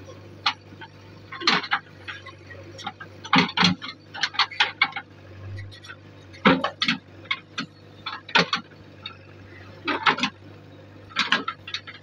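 JCB 3DX backhoe loader's diesel engine idling with a low, steady hum, under sharp clinks and knocks that come irregularly in clusters of several.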